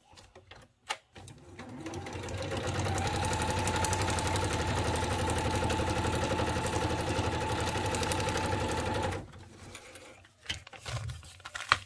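Electric sewing machine stitching: the motor speeds up about a second in, runs at a steady rapid stitch for several seconds, then stops.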